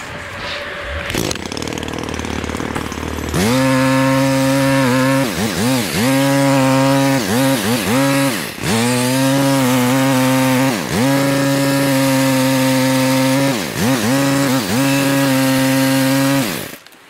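A few seconds of rushing noise. Then a chainsaw runs at high speed, its pitch dipping and recovering again and again as it is let off and opened up or loaded in the cut. It cuts off suddenly near the end.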